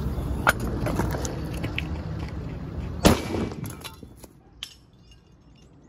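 A single sharp bang about three seconds in, a firecracker blasting apart an old metal motorcycle compartment, over a steady low rumble that fades away after it.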